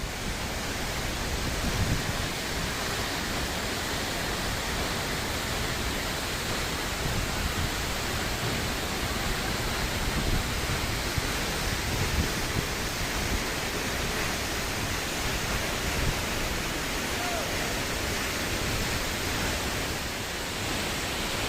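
Steady rush of falling water from a tall waterfall about 400 feet high, an even, unchanging noise.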